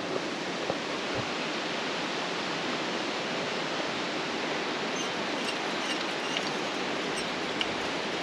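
A waterfall rushing steadily below, with a few faint high chirps over it in the second half.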